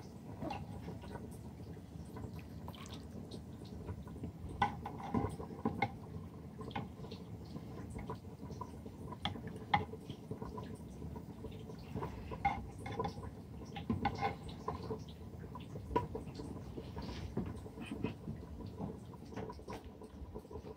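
Scattered soft clicks, small knocks and drips as cooked mutton and broth are served into a clay bowl.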